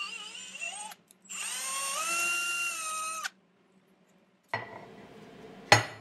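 Homemade CNC mill spindle whining as it taps threaded holes in a steel plate, in two runs; in the second the pitch rises and then holds before cutting off. Then a knock and a louder sharp metal clunk as the steel plate is set down on a steel table.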